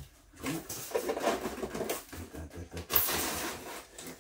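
Cardboard and packing material rubbing and scraping as a heavy statue base is worked out of its shipping box, in irregular rustling strokes with a louder, harsher scrape about three seconds in.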